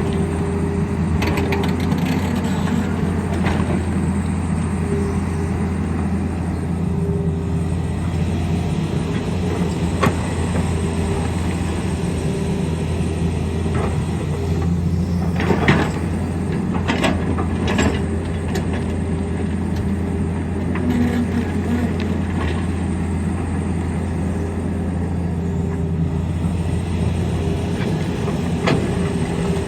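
Tata Hitachi excavator's diesel engine running steadily under load, with scattered clanks and scrapes of the bucket against rock, several in quick succession about halfway through.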